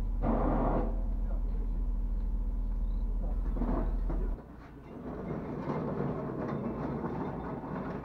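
Workshop noise: a steady low rumble with a brief voice near the start, then an abrupt change about four seconds in to clattering knocks and scrapes of parts being handled.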